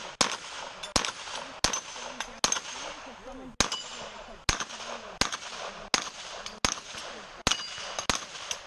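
A string of about a dozen gunshots fired at an uneven pace, under a second apart, several followed by a brief metallic ring of hit steel targets.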